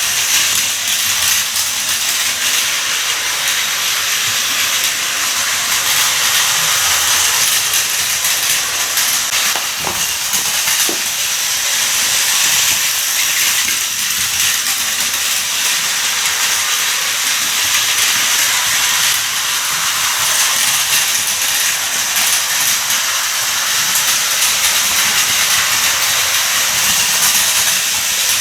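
Plarail toy train running on its plastic track, a steady whirr of its small motor and gears, with a couple of faint ticks around the middle.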